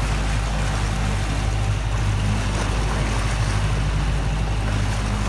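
Motorboat engine running steadily under way, a low drone with the rush of water and wind over it.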